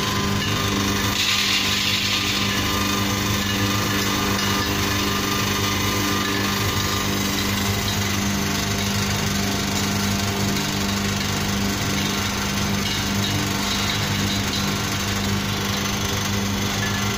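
Small electric screw oil press running steadily while pressing seeds, its motor and gear drive giving a constant low mechanical hum with a grinding noise over it.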